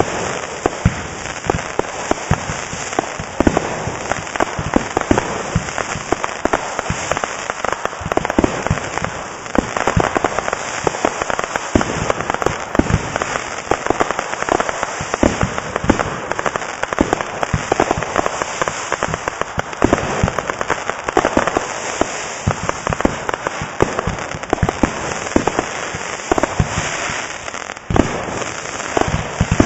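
Aerial fireworks firing and bursting in quick succession: a dense run of sharp bangs and pops, many each second, over a continuous crackle.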